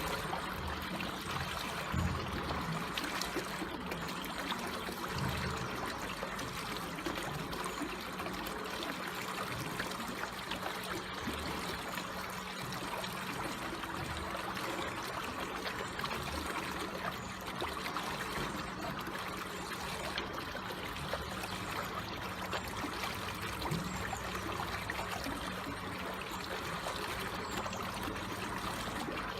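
Water trickling and flowing slowly in a small stream, a steady gentle gurgle.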